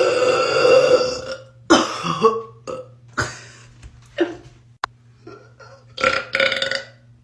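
A woman burping: one long, drawn-out burp, then a quick string of short burps in succession, the last two close together near the end.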